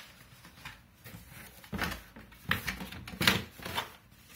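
Cardboard graphics-card box and its black packaging insert being handled: a string of short rustles and soft knocks, the loudest about two to three and a half seconds in.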